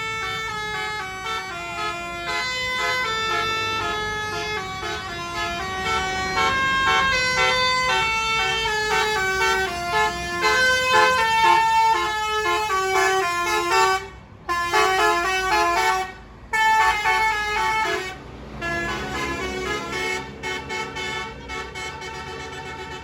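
A bus's Basuri telolet horn playing a long multi-note tune, several pitches sounding together and stepping up and down. It breaks off briefly a few times past the middle and plays on more softly near the end.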